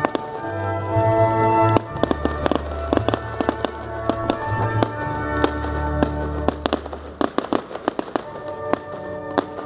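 Fireworks display: a run of sharp bangs and crackles, coming thick and fast in the last few seconds. Under them plays music, with sustained chords and a deep bass line in the middle stretch.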